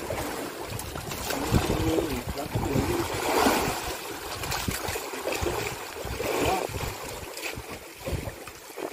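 Choppy sea water lapping and splashing against the wooden poles of a fishing platform, with a few low thumps.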